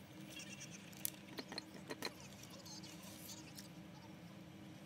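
Quiet eating sounds: a few short, sharp clicks and crunches from toast being picked at and eaten off a plate, bunched about one to two seconds in, over a steady low hum.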